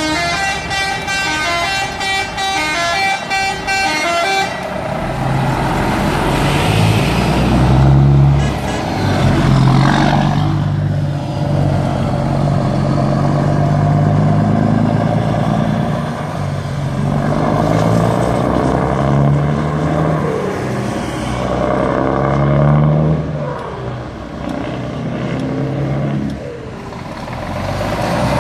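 A truck's musical air horn plays a short tune of stepping notes for about the first four seconds. Then heavy truck engines run as the trucks drive past one after another, swelling and fading as each goes by.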